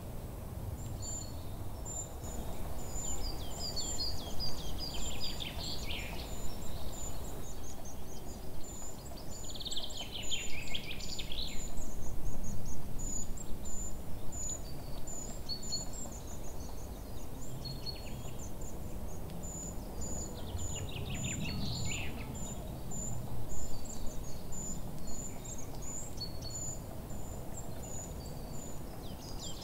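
Nature ambience: birds calling in several short bursts over a steady, very high-pitched chirp that repeats about twice a second, with a low rumble underneath.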